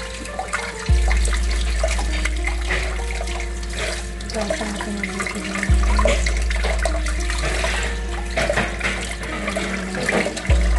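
Tap water running and splashing in a sink as raw shrimp are washed by hand, over background music.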